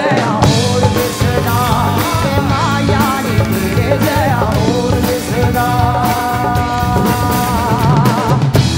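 A live pop band of electric guitars, bass and drum kit playing loudly, with a woman singing a wavering, ornamented melody over it; the notes are steadier and more held in the second half.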